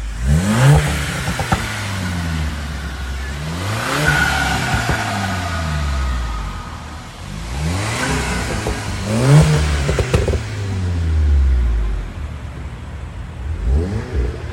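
Turbocharged 2.0-litre four-cylinder of a VW Golf R Mk7 on an APR Stage 2 tune, revved sharply about four times. Each rev falls away slowly, with pops and crackles from the exhaust as the revs drop, the overrun crackle the tune is set up to make.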